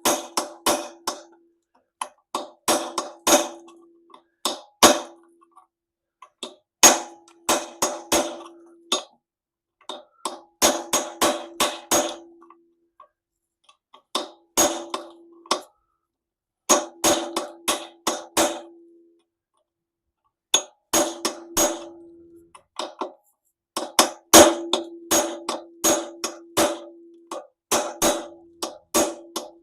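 Hammer blows on a chisel against a stripped Allen-head bolt, in bursts of several quick strikes, with the metal ringing after some of them: the bolt head is being notched and knocked round to loosen it.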